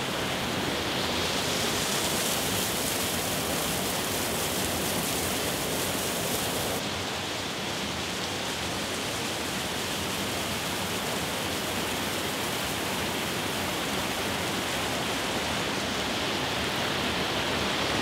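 Waterfall pouring over a rock face hung with icicles and splashing onto mossy boulders: a steady rush of falling water. The upper hiss is brighter for the first seven seconds or so, then eases.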